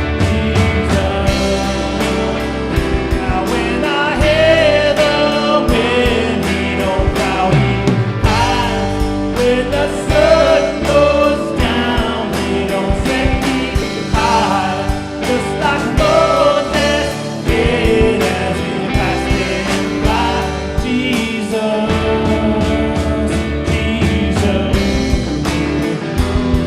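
Full-band worship song: guitars, bass and drums with a wavering melodic lead line over them.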